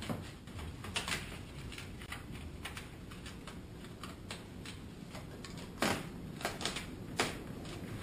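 Irregular clicks and crinkling of aluminum foil sealing tape being handled and pressed into a corner of foil-faced foam insulation board, with a few sharper taps in the second half.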